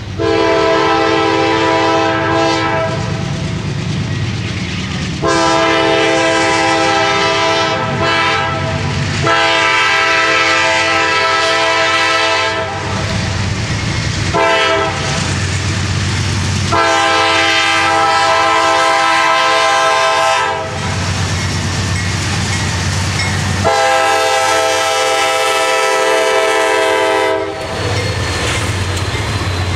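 A CSX freight train's diesel locomotive sounds a series of about six long horn blasts while approaching and passing. Its engines rumble between the blasts, and wheels click over the rail joints as the locomotives go by near the end.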